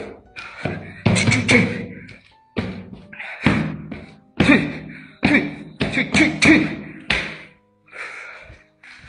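Background music with a beat of hard percussive hits about once a second, each hit carrying a short pitched chord.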